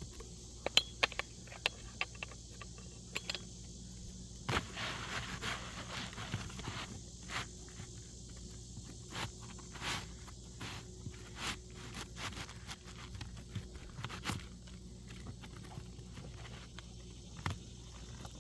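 Asphalt 3-tab roof shingles scraping and rustling as a replacement shingle is worked into place under the rows above it, with scattered sharp clicks and knocks. A longer scrape comes about four and a half seconds in.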